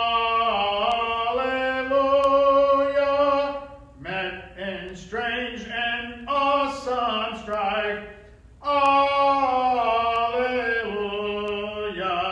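Unaccompanied hymn singing, with short syllable-by-syllable phrases alternating with long drawn-out notes that slide through several pitches. The singing breaks briefly about 4 seconds in and again near 8.5 seconds.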